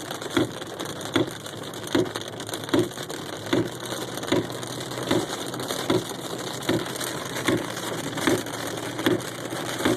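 Car windshield wipers running fast, a thump a little more than once a second with each stroke, over a steady hiss of heavy rain on the car.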